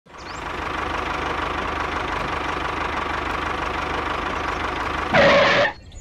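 A small engine or motor running steadily with a fast, even pulse, then a short loud rush of noise near the end.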